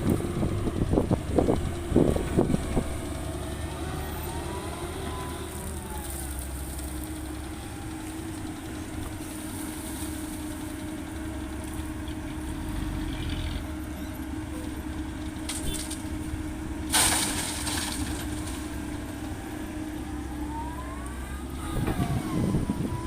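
Diesel engine of a Komatsu PC130-8 excavator running steadily under load. A hydraulic whine rises and falls twice as the arm works, with a few knocks in the first three seconds. A short, sharp hiss comes about seventeen seconds in.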